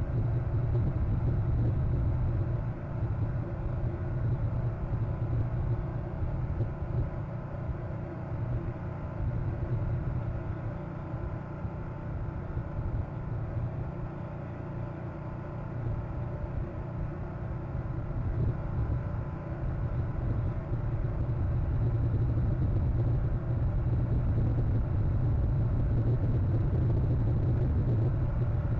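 Steady low rumble of outdoor background noise that swells and eases slowly, with no distinct calls or knocks.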